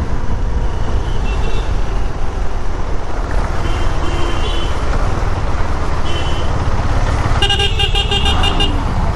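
Road traffic in a jam: a steady low rumble of engines and road, with vehicle horns honking in short toots and one longer, louder honk near the end.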